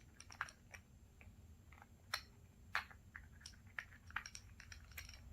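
Scattered light clicks and taps of metal scuba regulator parts being handled, while its loose piston and reducer are checked for the source of a leak.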